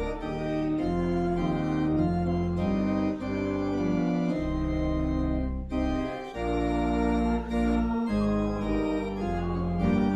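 Church organ playing a slow hymn-like passage of held chords over a deep pedal bass, the chords changing every second or so.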